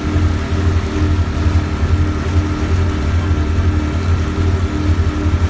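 Boat's engine running with a steady low drone over the churn of its wake.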